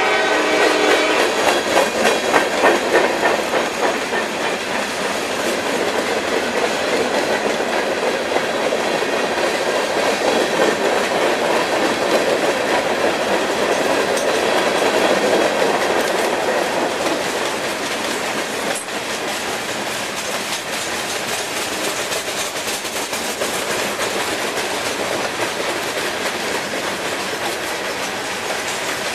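Long freight train of high-sided open-top cars rolling past close by: a steady rumble with rapid wheel clicks over the rail joints. A locomotive horn blast dies away about a second in.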